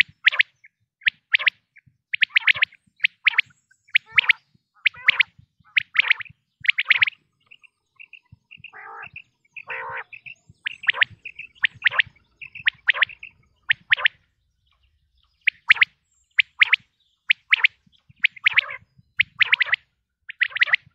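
Quail calling: a rapid series of short, sharp chirps repeated in clusters, with a lower, longer rasping call about halfway through.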